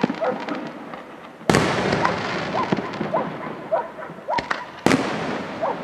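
Aerial firework shells bursting: a loud bang about a second and a half in and another near the end, with smaller reports and crackling between them.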